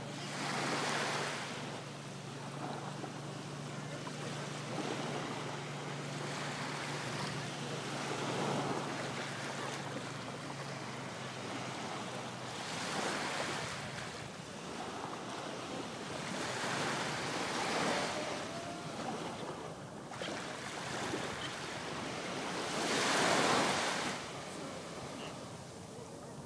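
Small Gulf of Mexico waves washing up on the sandy beach, a steady surf hiss that swells with each wave every few seconds, the biggest wash coming near the end.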